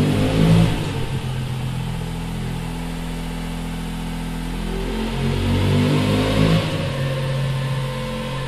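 Moto Guzzi V85 TT's air-cooled V-twin running through a MIVV Oval slip-on exhaust with carbon end cap, idling between two throttle blips: one just as the sound begins and another about six seconds in.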